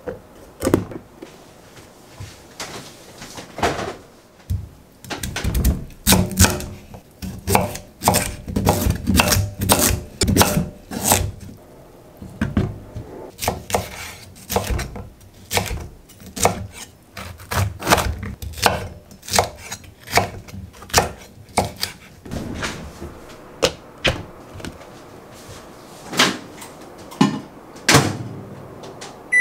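Kitchen knife cutting bell peppers on a wooden cutting board: a run of irregular knocks, packed most closely through the middle, with a few louder single knocks near the end.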